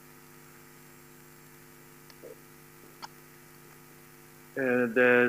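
Steady electrical mains hum, with a faint click about three seconds in; a man's voice starts near the end.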